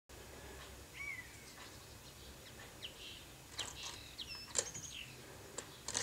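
Birds chirping: short notes that rise and fall, scattered through, busier in the second half, with a couple of sharp clicks near the end.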